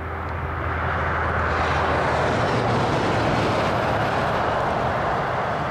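A car passing on the highway: tyre and road noise swells as it approaches, is loudest about three seconds in, then eases off.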